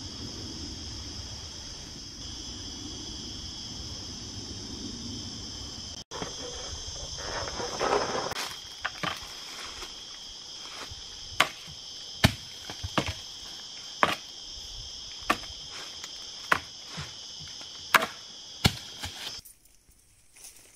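A steady, high insect drone at two pitches, which cuts off shortly before the end. From about eight seconds in, a series of about a dozen sharp wooden knocks, irregularly spaced, as a long pole strikes the jackfruit tree.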